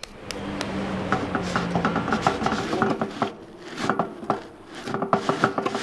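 Hands patting, pressing and rubbing wet clay as a terracotta pot is formed by hand: a quick, uneven run of soft pats and rubbing.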